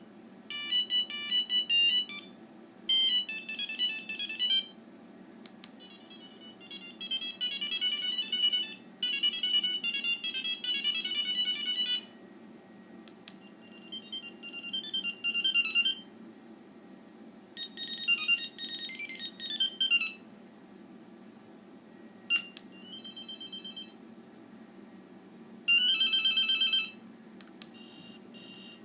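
NEC DB4000 mobile phone playing its built-in monophonic ringtones: a series of short, high, beeping melodies, each a few seconds long, previewed one after another with brief pauses between.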